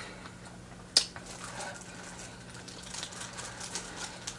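Chewing crispy fried chicken close to the microphone: small crackles and ticks, with one sharp click about a second in, over a faint steady hum.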